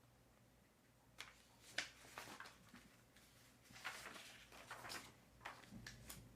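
Quiet desk-work sounds: a scattered, uneven series of short soft rustles and light taps, like paper and stationery being handled, over a faint low hum.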